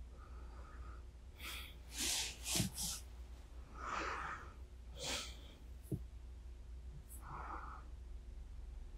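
A sleepy person breathing close to a binaural microphone: several soft breaths and sniffs, with a short cluster of louder breaths about two seconds in and a single small click about six seconds in.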